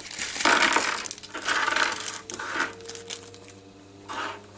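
Small metal hardware (screws, washers, nuts and miniature ball bearings) tipped out of a plastic bag, clinking and rattling onto a tabletop in several bursts over the first two and a half seconds, then settling, with a faint ringing tone lingering near the end.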